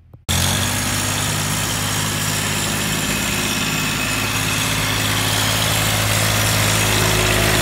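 Small three-cylinder diesel engine of a compact tractor running steadily while the tractor drives, cutting in suddenly a moment in. The engine has just been rebuilt with a new crankshaft, connecting rods, pistons and sleeves.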